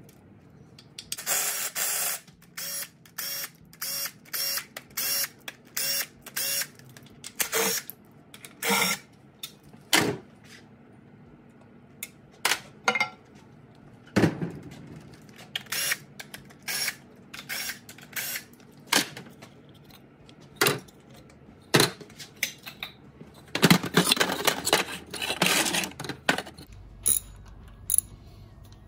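Hand ratchet clicking in short runs as bolts are backed out of the timing cover and cam sprocket at the front of a GM LQ9 6-litre V8 block, with metal clinks between strokes. The ratcheting comes in quick rattling bursts, densest early on and again about two-thirds of the way through.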